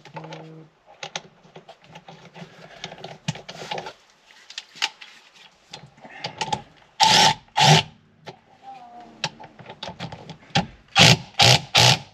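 Ratchet clicking as the steering wheel centre bolt is run in and tightened, with several short, loud strokes, two about seven seconds in and four near the end.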